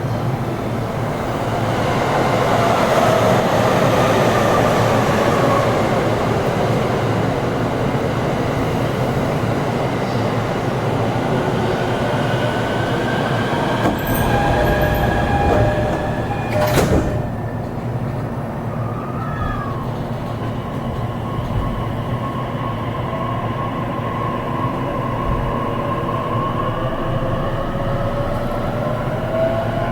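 Running sound inside a JR East E233 series electric train: rumble of wheels on rail under the whine of the traction motors and inverters. The whine falls in pitch at first, then rises steadily from about halfway as the train gathers speed. A single sharp click comes a little past halfway.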